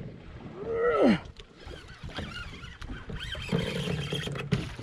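Conventional fishing reel paying out line while a big amberjack runs, the fish taking line faster than the angler can stop it with his thumb on the spool. There is a loud rising-then-falling cry about a second in. A steady high whine comes in about three seconds in and cuts out near the end.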